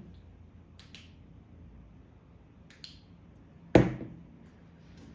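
Quiet room with a low steady hum, a few faint clicks, and one sharp knock a little under four seconds in.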